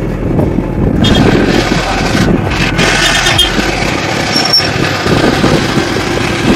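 Motorcycle running at riding speed, its engine and road noise mixed with wind rushing over the microphone, with a brief high squeak about four and a half seconds in.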